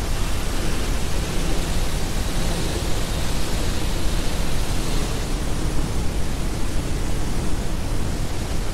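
Steady, loud wash of rushing noise, like pink noise, that does not change, with faint low steady tones under it.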